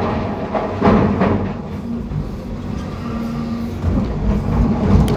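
John Deere 350G excavator's diesel engine and hydraulics running steadily, heard from inside the cab, with a loud burst of noise about a second in.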